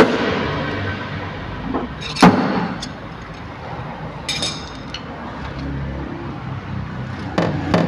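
Glue pull tabs snapping off a car body panel during paintless dent repair: a sharp pop at the start and another about two seconds in. Near the end, light evenly spaced hammer taps begin as the raised spots are knocked down.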